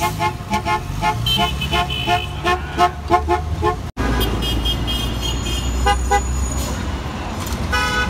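Vehicle horns honking: a rapid string of short toots, about four a second, for the first three and a half seconds. After a brief dropout come longer horn blasts over the low rumble of idling traffic.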